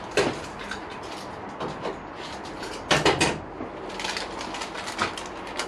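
Small plastic parts bag being cut open and handled by hand, giving irregular crinkles and sharp clicks, the loudest about three seconds in.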